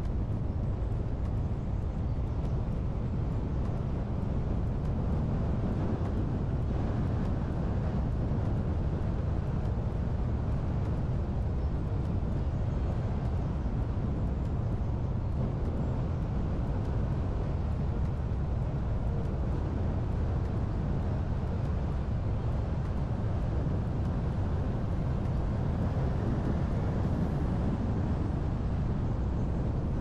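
Car being driven, heard from inside the cabin: a steady low rumble of tyres and engine.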